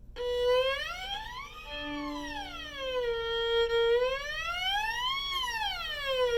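Violin bowed on the A string while one firmly pressed finger slides up and down it, making a ghost-noise glissando: the pitch glides up and back down twice.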